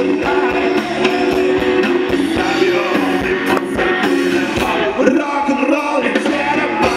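Live rock-and-roll band playing loud: electric guitars and upright double bass over a steady beat.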